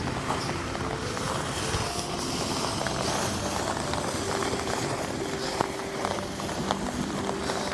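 Steady rain with scattered sharp ticks, under soft background music with held notes.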